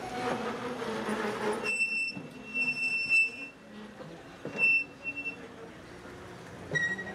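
Passenger coaches rolling past on the rails, with a few sharp clacks of wheels over the track. A high-pitched wheel squeal sets in about two seconds in and holds for over a second, comes back briefly twice around the five-second mark, and a lower squeal sounds near the end.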